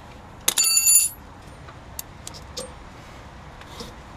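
A metal part clanks and rings briefly about half a second in, followed by a few light clicks of metal hardware being handled.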